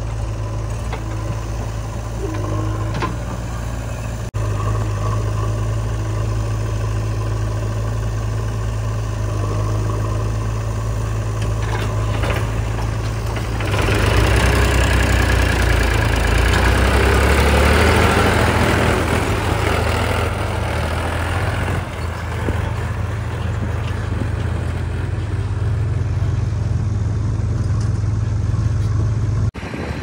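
Diesel engine of a backhoe loader running steadily at work. From about halfway through there is a louder, rougher stretch of several seconds, the engine pitch shifting under load with a rush of noise, before it settles back to a steady run.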